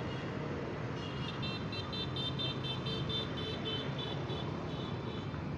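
Steady outdoor rumble of road traffic or distant engines. Over it, from about a second in until near the end, comes a rapid series of short, high-pitched chirping beeps, about five a second.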